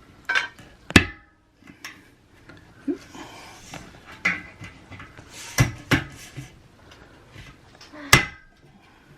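Metal bed-frame rods and parts clanking against each other as they are handled, about seven sharp clanks, the loudest about a second in and near the end, each ringing briefly.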